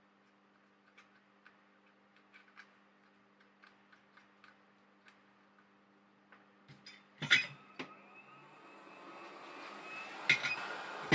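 Light ticks and taps of small hand tools on a circuit board, then a sharp clatter about seven seconds in. After that a hot air rework station's blower starts up, and its hiss builds steadily toward the end, with another clatter.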